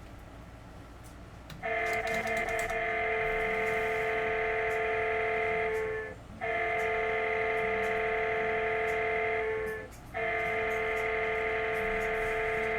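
Background music: three long held synth chords, each lasting about four seconds, with brief breaks between them, starting about two seconds in.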